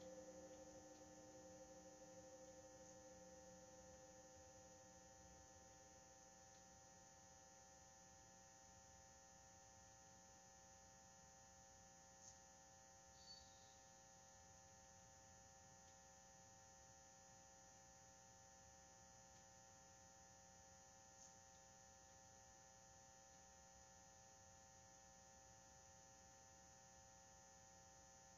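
Near silence with a steady electrical hum. A faint ringing tone dies away over the first few seconds, and a few faint ticks come later.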